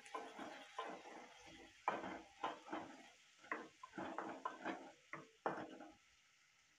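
A spoon scraping and knocking against a metal pan while stirring onion and tomato, in irregular short clatters that stop about six seconds in.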